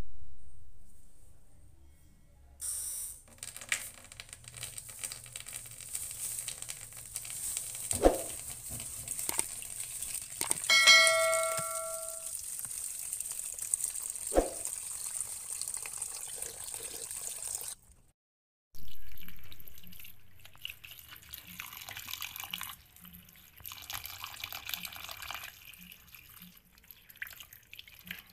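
Tap water running into a plastic basin in a stainless steel sink while raw shrimp are rinsed by hand, with a few knocks and a short chime about eleven seconds in. The water stops briefly about eighteen seconds in, then runs again.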